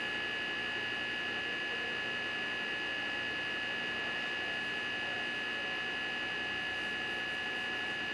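Steady electrical hum with several high, unchanging whining tones over a faint hiss.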